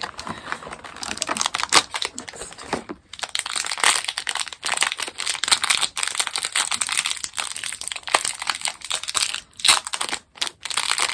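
Plastic packaging of a mini-figure blind pack being crinkled and handled, a dense crackling that breaks off briefly about three seconds in and again near the end.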